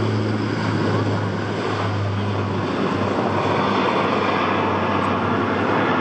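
Airbus A400M's four turboprop engines at takeoff power, a loud, steady drone of engines and propellers during the takeoff run and climb-out. A low hum in it fades out about two and a half seconds in.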